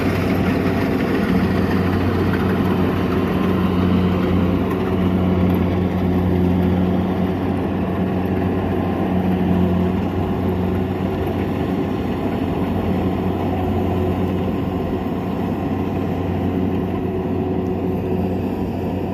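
Kubota DC-70 combine harvester's diesel engine running steadily under harvesting load, a constant low hum that slowly fades as the machine moves away.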